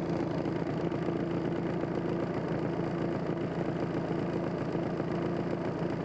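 Refrigerant recovery machine running steadily with an even hum, its compressor drawing the refrigerant out of an air-conditioning condenser into a recovery cylinder.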